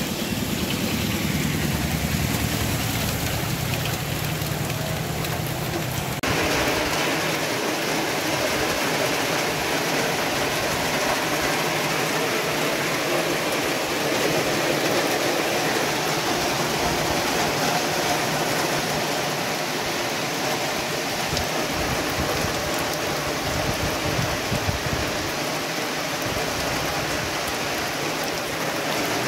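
Heavy rain pouring down, a steady hiss, heard from an open-sided vehicle on a wet road. A low vehicle rumble under the rain in the first few seconds stops abruptly about six seconds in, after which the rain hiss is alone.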